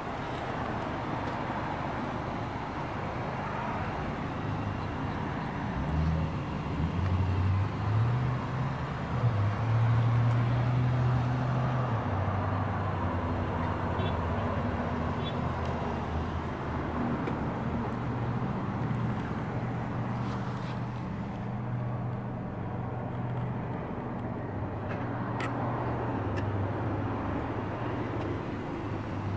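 Traffic noise from passing vehicles, with a low engine hum that swells and shifts in pitch about six to twelve seconds in, then carries on steadily.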